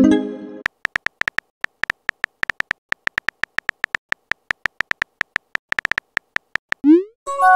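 Synthetic phone-keyboard tap clicks from a texting-story app, quick and uneven as a message is typed letter by letter. A short notification tone sounds at the start, and near the end a short rising swoosh and a brief chime mark the message being sent.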